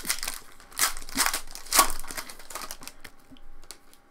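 Foil wrapper of a baseball card pack being torn open and crinkled, a run of crackly rips over the first three seconds, the loudest a little under two seconds in.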